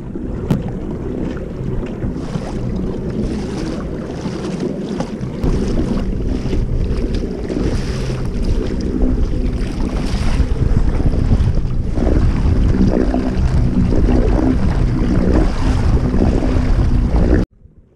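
Wind blowing across the microphone over water rushing and splashing along the hull of a kayak under way. It grows louder through the middle and cuts off suddenly near the end.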